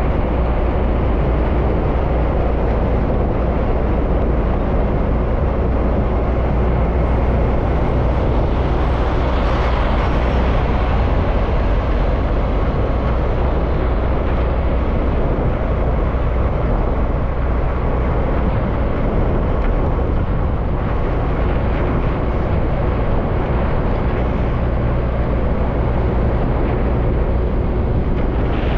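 A heavy semi-truck on the road: a steady, deep engine drone mixed with tyre and road noise.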